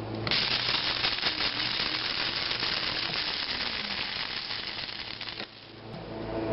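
Krups type 203 electric coffee grinder running with dried hot peppers inside, the pieces rattling and crackling against the spinning blade and the cover. It starts suddenly, runs for about five seconds and cuts off. A short run like this gives crushed red pepper.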